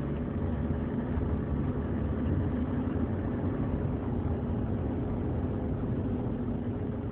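Steady cabin noise inside a moving 2003 GMC Envoy: engine hum and tyre and road noise, with no distinct clunk.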